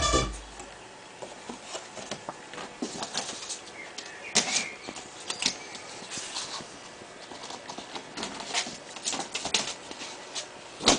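Music from the vinyl record cuts off right at the start as the tonearm is lifted. Then come scattered rustles and light knocks of a cardboard record sleeve being handled.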